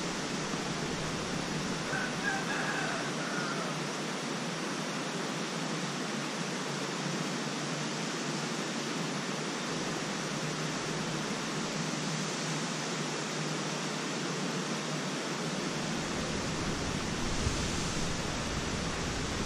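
Steady outdoor hiss, with a rooster crowing faintly once about two seconds in.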